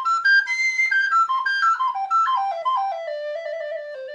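Professional recorder playing a quick run of separate notes that steps down from its high register to a low note held near the end, with a clear, strong tone.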